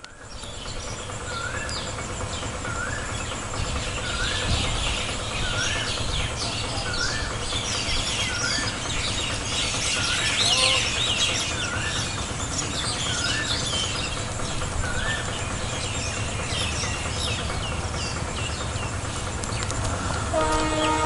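Night chorus of birds and insects with many quick chirps. One short rising call repeats about every second and a half through the first three quarters, over a steady low rumble. Right at the end a chord of several held tones starts.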